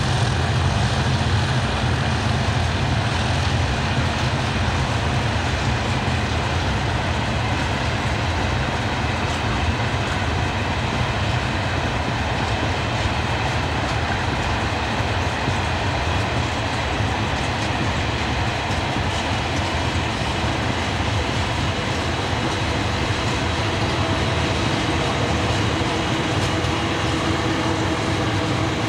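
Steady noise of a long rake of railway hopper wagons rolling past, wheels running on the rails. Near the end a diesel locomotive's engine note comes in as the locomotives at the rear of the train draw level.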